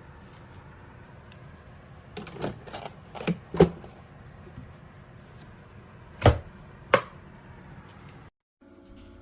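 Hard objects being handled: a cluster of clacks and knocks about two seconds in, then two sharp knocks about a second apart, over a steady low hum.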